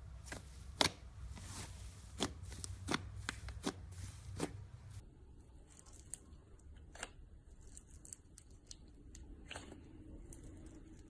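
Slime being squeezed and worked by hand, giving about ten irregular sharp clicks and pops. About five seconds in the sound changes to fainter, softer clicking and squishing of another slime.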